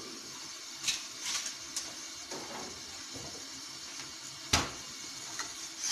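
Steady hiss of a pan of Kashmiri tea simmering on a gas burner, with a few light clicks and knocks and one sharp click about four and a half seconds in.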